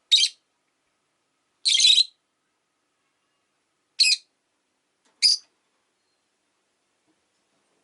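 Rosy-faced lovebird giving four loud, shrill, short calls, spaced a second or two apart, the second one longer.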